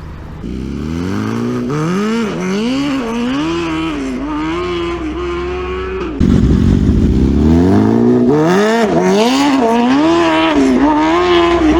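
BMW S1000RR inline-four engine accelerating hard, its note climbing and dropping back again and again. The riders put these stutters down to traction control cutting power. About halfway through the sound suddenly gets louder, with a deep rumble under the engine note.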